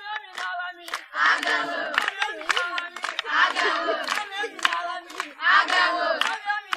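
A group of people chanting or shouting together in rhythm, with a loud surge of voices about every two seconds, against a quick run of sharp claps.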